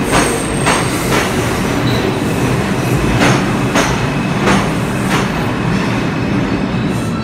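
NYC subway train of R142-series cars rolling into the station and slowing, with a steady rumble and wheels clacking over rail joints about twice a second, the clacks spacing out a little as it slows.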